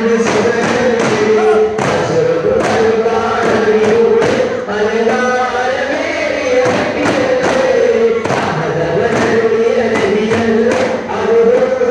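Men's group chanting a devotional song in unison to daf frame drums struck in a steady, repeating rhythm.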